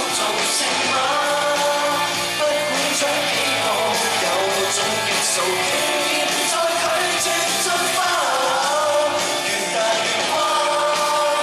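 Live pop-rock band playing, electric guitars and drums under male singing, loud and steady.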